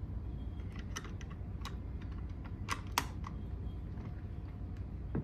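Scattered small plastic clicks and taps, about eight of them and loudest about three seconds in: batteries being taken out of an adult CPR manikin's battery compartment.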